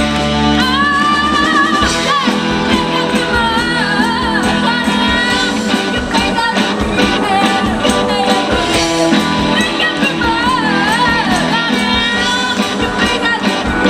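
Live band playing a rock-pop song, a lead vocal singing a wavering melody over a full band with steady drums.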